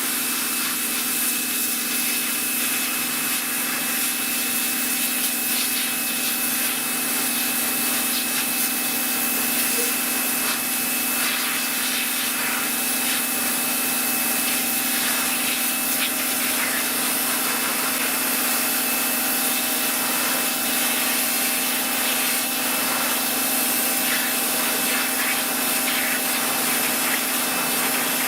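Sunpow BCN-H electric pressure washer running steadily, its motor and pump humming under the hiss of water jetting from a 25-degree fan nozzle.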